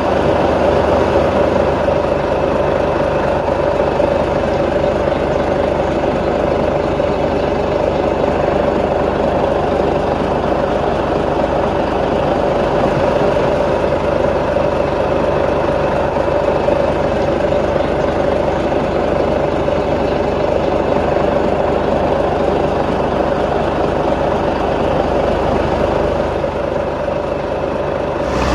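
Heavy construction machinery's diesel engine running steadily at an even speed, a continuous loud drone with no revving.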